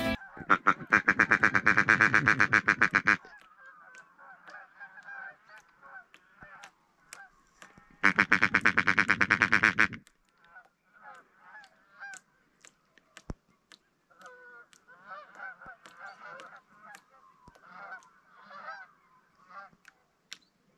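Two loud bursts of rapid, repeated calling close to the microphone, about half a second in and again around eight seconds in: a hunter's mouth imitation of a paradise shelduck (parrie) call, made without a duck caller. Between and after the bursts, distant waterfowl call faintly.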